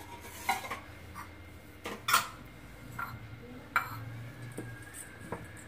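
Stainless steel kitchen vessels and a spoon clinking: about six light, separate knocks, the loudest about two seconds in, as dry flour is mixed by hand in a steel bowl.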